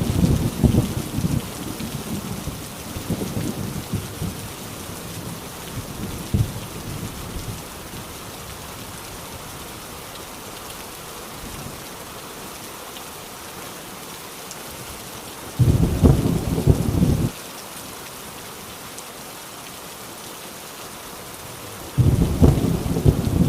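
Heavy rain falling steadily with rolls of thunder. A rumble fades away over the first several seconds, a second one comes about 16 seconds in and lasts about two seconds, and a third starts near the end.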